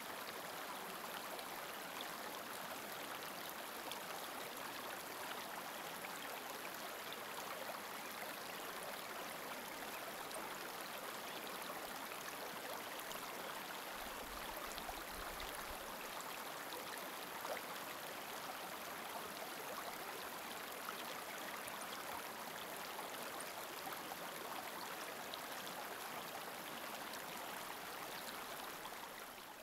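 Steady rush of flowing water, like a stream, fading away near the end.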